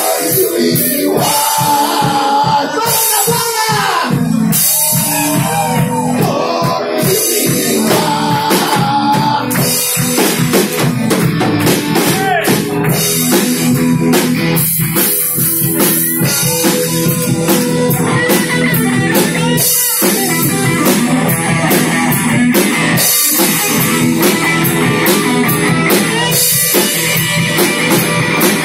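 Live rock band playing loud: electric guitars and a drum kit in a steady groove.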